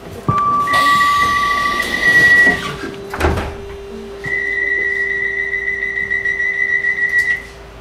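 Docklands Light Railway train's door warning tones: steady high electronic beeps, then a thud about three seconds in as the doors shut, followed by a second long high tone over a steady low hum from the train.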